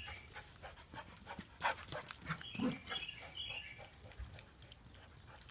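A small dog dashing around a yard over grass and dry leaves: scattered rustles and quick footfalls, with a couple of sharper thumps.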